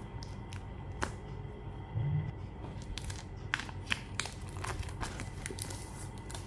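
Clear plastic shrink wrap being picked at and peeled off a cardboard box: scattered crinkles and crackles, coming thicker in the second half.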